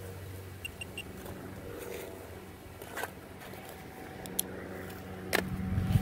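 A steady low hum that swells near the end, with three faint short high beeps about a second in and a few sharp clicks scattered through.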